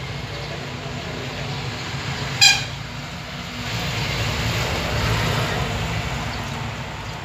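A vehicle horn gives one short beep about two and a half seconds in, then passing-traffic noise swells and fades as a vehicle goes by.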